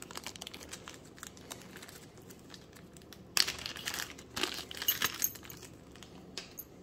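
Small clear plastic zip bags crinkling and crackling as hands open and handle them, with a louder, busier cluster of crinkles from about three to five seconds in.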